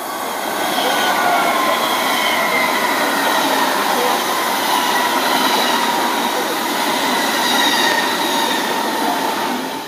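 A long passenger train running through a station at speed: a loud rush of wheels on rail with a faint whine over it. The sound cuts off sharply near the end.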